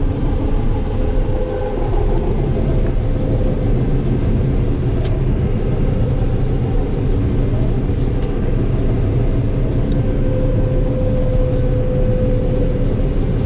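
Corn combine running steadily while harvesting: a continuous low engine rumble with a steady whine from the machinery, and a few faint clicks.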